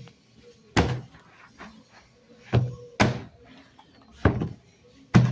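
Bread dough being kneaded by hand in a plastic basin: five dull, irregular thuds as the dough is pushed and pressed against the bowl.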